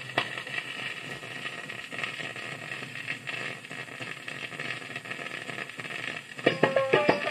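Vinyl record playing on a stereo record player: the stylus touches down on the lead-in groove with a click at the start, then steady surface hiss and crackle. The record's music, with tabla-like percussion, starts about six and a half seconds in.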